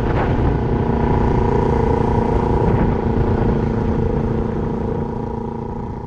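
Motorcycle engine running at a steady speed, with wind buffeting the microphone; the sound fades out near the end.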